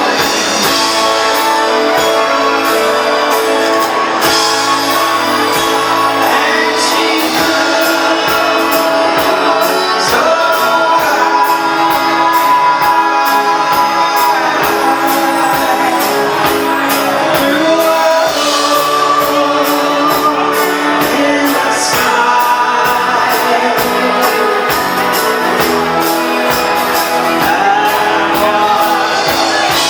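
A song performed with singing over instruments and a steady beat.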